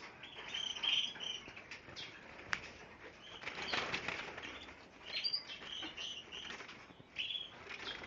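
Small caged birds such as canaries and finches chirping in short, scattered notes, with wings fluttering in the cages. A single sharp click comes about two and a half seconds in.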